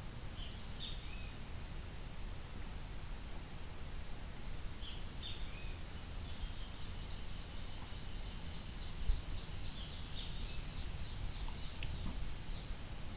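Outdoor lakeside ambience: a steady low rumble of wind on the microphone, with faint, scattered bird chirps and a quick run of evenly repeated high chirps in the middle.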